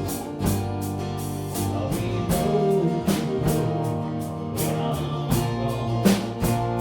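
A live band playing an instrumental passage: guitar, bass and a drum kit keeping a steady beat of about two hits a second.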